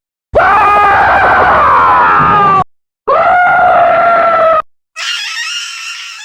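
Stock scream sound effects played back to back: a loud scream of about two seconds sliding down in pitch, a shorter scream after a brief gap, then a higher, wavering cry about five seconds in that fades away.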